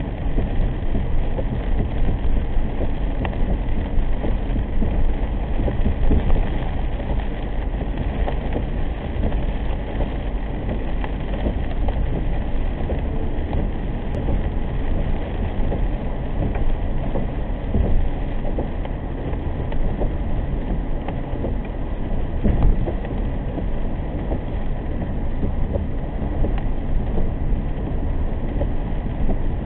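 Steady road and tyre noise of a car driving on a rain-soaked road, heard from inside the cabin, with rain on the windshield.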